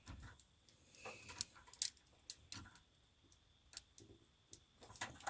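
Faint, scattered clicks and light taps, a few seconds apart, with near quiet between them: small hand tools and wiring being handled during an electrical hookup.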